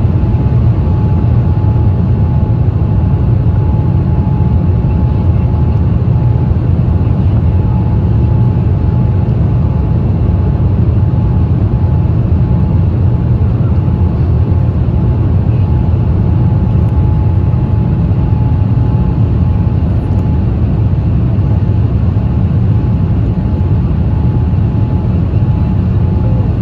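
Cabin noise of a Boeing 787-8 heard from a window seat over the wing, on approach with flaps extended. A loud, steady, deep rumble of the GEnx engines and rushing air, with a faint steady whine above it.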